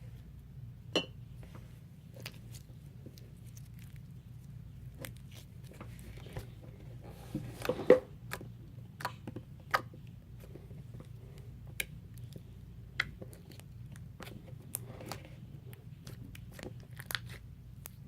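Borax-activated slime made from a polyvinyl alcohol face mask being poked and squished with fingers, making irregular sticky clicks and pops, with a louder cluster about eight seconds in.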